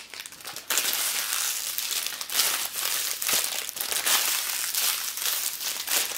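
Crinkly wrapper of a Kinder Gran Sorpresa Mini chocolate egg being handled and torn open: a continuous crackling rustle with many small crackles. It starts under a second in.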